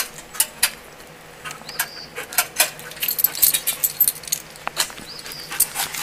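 A dog nosing around under a truck's trailer hitch, with irregular jingling and clicking throughout. A few short high chirps come about two and five seconds in.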